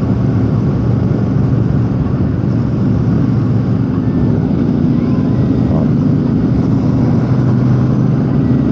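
Royal Enfield Super Meteor 650's parallel-twin engine running at a steady cruise, its even engine note under a constant rush of road and wind noise.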